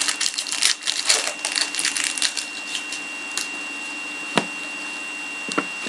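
Trading cards and their packaging being handled: a quick run of small clicks and rustles for about two and a half seconds, then three single clicks spaced about a second apart.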